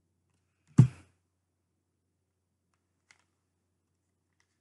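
One sharp knock about a second in and a faint click a couple of seconds later, from handling a deck of tarot cards. Otherwise near silence.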